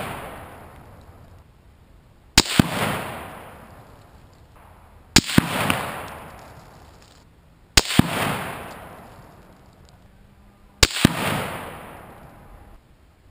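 Four rifle shots from a 6.5 Creedmoor Ruger Precision Rifle firing Hornady 147 gr ELD-M handloads over Hodgdon Superformance, roughly every two and a half to three seconds. Each shot is a sharp doubled crack followed by a long echo that fades over about two seconds. The shots are a load-development ladder, each one a tenth of a grain heavier than the last.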